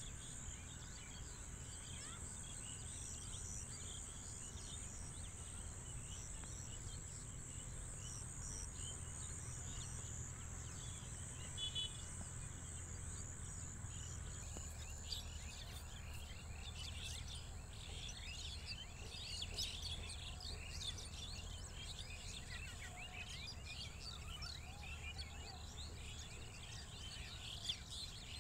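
Outdoor rural ambience of many small birds chirping and twittering, growing busier about halfway through, over a steady high-pitched buzz and a low rumble.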